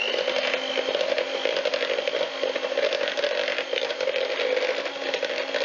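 Electric hand mixer running steadily, its beaters churning through a thick poppy-seed filling.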